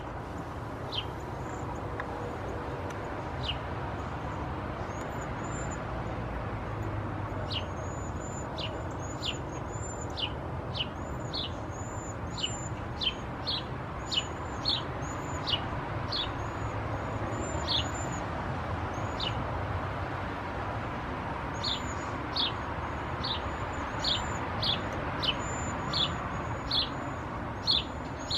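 Cedar waxwings calling: short, thin, high-pitched notes repeated about once or twice a second, sparse at first and coming thick and fast from several seconds in, over a steady low background rumble.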